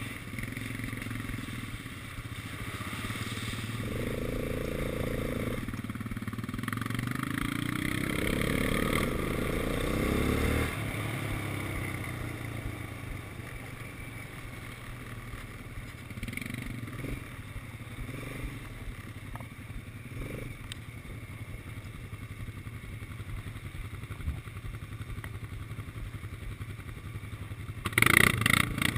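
Quad bike engine running under the rider, climbing in pitch as it accelerates a few seconds in and falling back about ten seconds in, then running more steadily at lower revs. A short loud burst of noise comes near the end.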